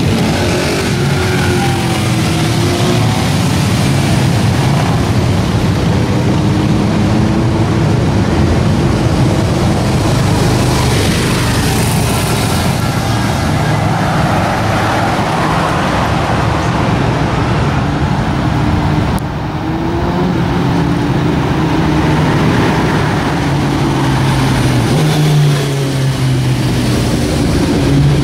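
Street traffic of motorcycles and cars driving past, their engines rising and falling in pitch as each goes by, with some revving.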